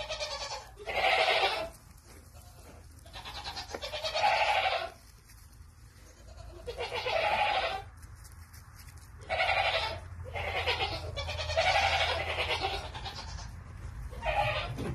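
Newborn piglets squealing: a run of about eight high, bleat-like squeals, each up to a second or so long, coming every one to two seconds.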